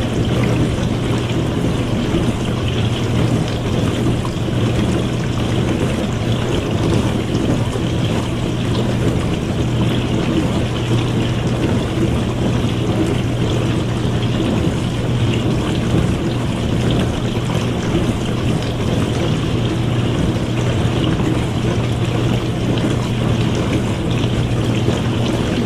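Dishwasher running mid-cycle: water spraying inside the tub over the steady hum of its wash pump motor, unchanging throughout.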